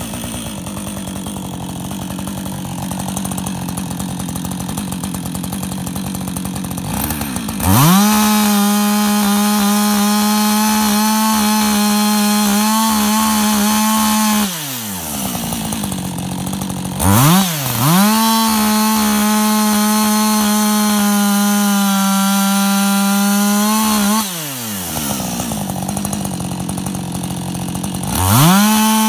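Husqvarna 562XP two-stroke chainsaw with a skip chain idling, then revving up to full throttle and holding a steady high pitch while cutting through wild cherry logs. It does this twice, for about seven seconds each time, dropping back to idle in between, and a third cut starts near the end.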